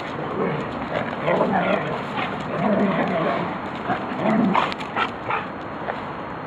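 Standard poodles play-fighting, vocalizing in several short bursts about a second apart, with a few sharp clicks in the middle of the scuffle.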